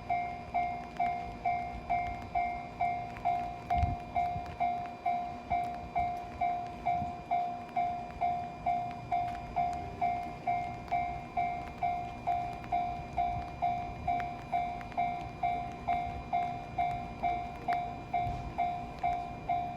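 Japanese railway level-crossing warning bell ringing at an even pace, about two rings a second, each ring fading before the next. A low thud about four seconds in.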